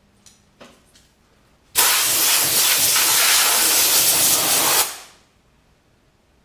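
Blast of compressed air from a blow gun: a loud, steady hiss that starts sharply, lasts about three seconds and tails off.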